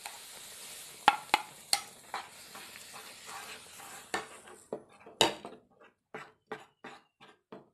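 Roasted semolina hitting boiling water and ghee in a kadhai, hissing and bubbling, with a few sharp knocks against the pan. The hiss dies away a little past halfway and gives way to a wooden spatula stirring the thick mixture in steady strokes, about two a second.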